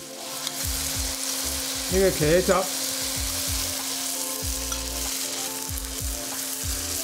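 Tomato-based sauce sizzling in a hot wok with chicken, onion and tomato, while a metal spatula stirs and knocks against the wok. A steady low hum runs underneath.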